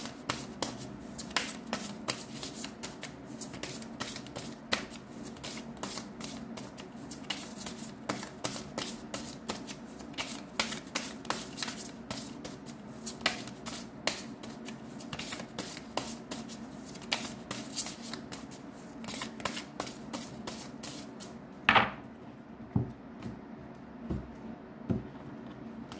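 A deck of tarot cards being shuffled by hand: a fast, uneven run of crisp clicks and flutters that stops about 22 seconds in with one loud snap, followed by a few soft knocks as the deck is handled.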